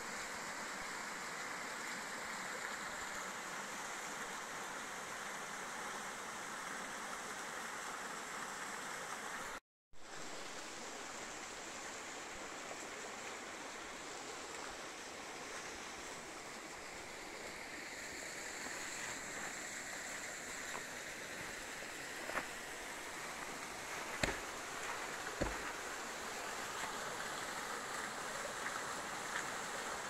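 Water rushing over rocks in a mountain creek and small waterfalls, a steady hiss that cuts out briefly about ten seconds in. A few short knocks come near the end.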